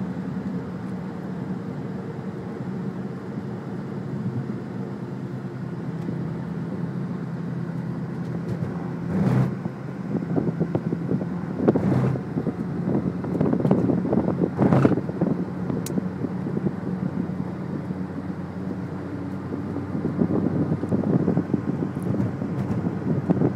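Steady car engine hum and road noise heard from inside a moving car following another car, with a few brief louder swells about nine, twelve and fourteen to fifteen seconds in.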